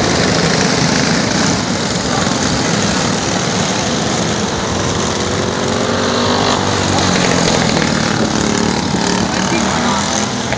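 A pack of junior racing go-karts' small engines running at race speed, with one engine's pitch sliding up and down in the middle as karts pass close.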